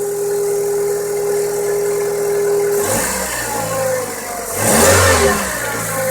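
Kia Rio's 1.4-litre G4EE four-cylinder petrol engine idling, then revved briefly twice, about three seconds in and again, louder, about five seconds in. It is warming up with an internal knock that the owner says appeared at 30,000 km and gets stronger as the engine warms.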